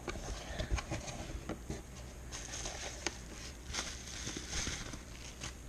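Plastic wrapping around a baitcasting reel crinkling and rustling as the reel is handled and lifted out of its cardboard box, with scattered light clicks of handling.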